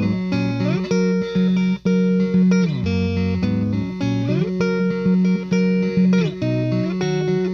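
Electric guitar played through a Satellite Neutron 18-watt tube amp: a Gibson Les Paul Tribute with P90 pickups playing a riff of quick single notes with several slides up and down the neck.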